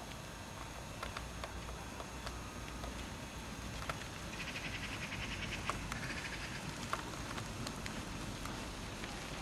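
Faint, irregular hoof thuds of a ridden horse moving over the sand of a riding arena, under a steady outdoor background hiss, with a brief rapid high ticking about halfway through.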